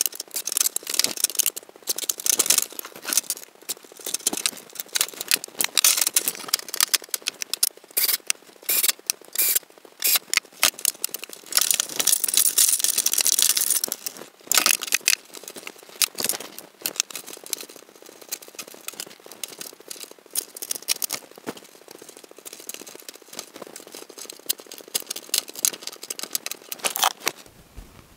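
Handling noise of a PC being assembled: rapid clicks, rattles and rustles as gloved hands work bundled power-supply cables and slide a power supply into a metal computer case. A longer rustling scrape comes a little before the middle, and the clicks grow softer and sparser in the second half.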